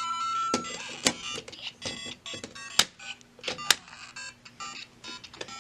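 LEGO Super Mario interactive figure playing electronic game sound effects and jingles from its small speaker, starting with a short beep, with several sharp plastic clicks as the figure is knocked and hopped against the bricks.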